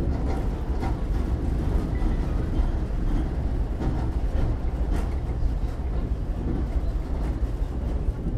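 Tatra T3A tram running along the track, heard from inside the passenger car. Its wheels and running gear make a steady low rumble, with a few sharp clicks along the way.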